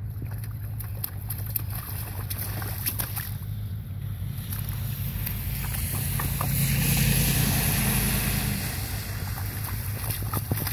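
Small child's boots splashing through a shallow slushy meltwater puddle, scattered splashes over a steady low rumble that swells louder about seven seconds in.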